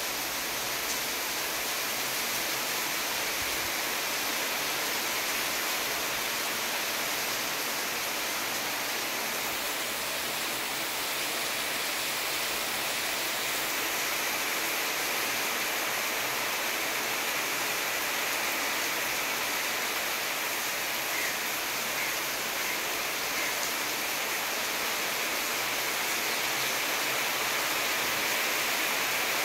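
Heavy rain falling steadily: an even hiss, a little louder near the end.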